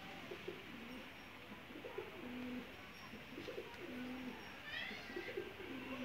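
Domestic pigeons cooing: low, throaty coos in repeated bouts. A short run of high chirps from a small bird comes in about five seconds in.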